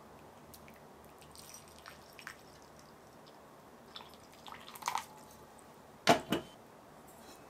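Hot water poured in a thin stream into a glass bowl: a quiet pour with scattered drips and small splashes. About six seconds in come two quick, loud knocks.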